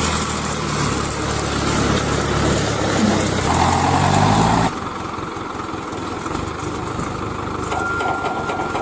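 JCB 3DX backhoe loader's diesel engine running, revving up briefly about three and a half seconds in, then dropping suddenly about halfway through to a quieter, lower engine sound.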